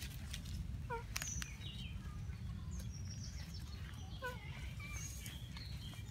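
Monkeys calling: two short high squeaky calls, about three seconds apart, with faint higher chirps between them over a steady low rumble.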